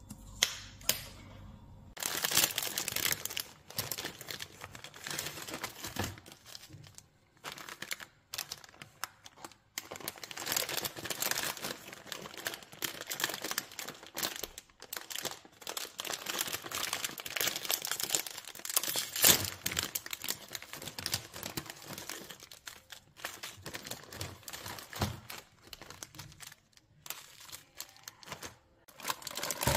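Two brief clicks, then plastic instant-noodle packets and seasoning sachets crinkling and rustling irregularly as they are handled and torn open.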